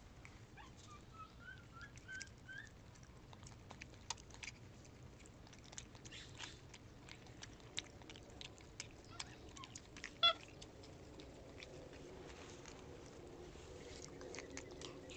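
White-fronted capuchin monkey eating a piece of red fruit: faint, irregular wet clicks and smacks of chewing and biting, with one sharper click about ten seconds in. A few faint high chirps rise in steps about a second in.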